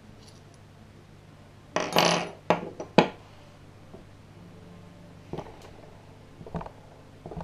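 Metal engine parts clinking and clattering on a wooden table as a disassembled pit-bike engine is handled. There is a rattling scrape about two seconds in, then two sharp knocks, and a few lighter knocks near the end.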